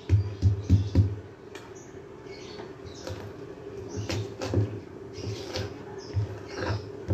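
A stone pestle pounding and grinding a spice paste of garlic, shallots and candlenuts in a stone mortar (cobek). A quick run of dull thuds comes in the first second, then softer grinding with scattered thuds.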